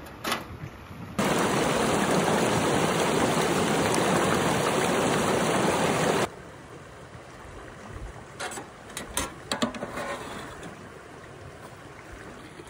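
Creek water rushing over a log: a loud, even rush that starts and cuts off abruptly, lasting about five seconds. Before it come a few metal clicks from the latch of a small wood-stove oven door. After it, quieter light metal clicks and clatter from the stove and its pan.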